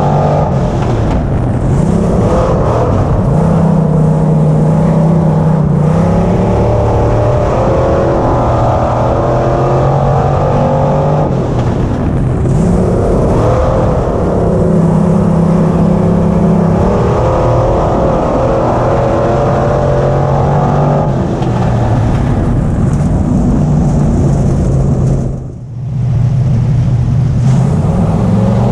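Dirt-track limited modified race car's engine running hard at race pace, heard from inside the car; its pitch holds for a few seconds, then swings down and back up, over and over, with one brief drop in sound near the end.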